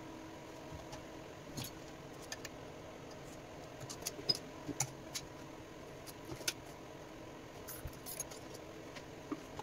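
Scattered light metallic clicks and clinks from gloved hands handling an aluminium intercooler and the things around it on the welding bench, over a steady low hum.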